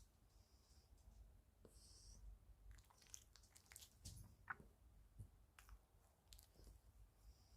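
Near silence: faint rustles and small clicks, with one brief falling squeak about four and a half seconds in.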